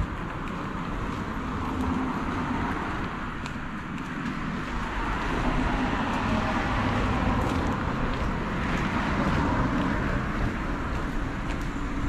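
A motor vehicle passing on a road, its engine and tyre noise swelling about halfway through and easing slightly near the end.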